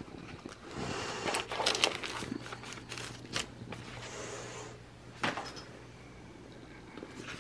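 Sticker sheets and paper being handled and sorted through: rustling with small clicks, busiest in the first half, and one sharp click about five seconds in.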